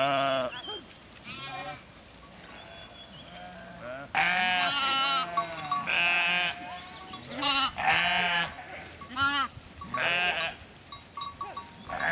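A flock of sheep bleating: many calls, some overlapping, each with a wavering quaver. They are loudest and densest around four to five seconds in.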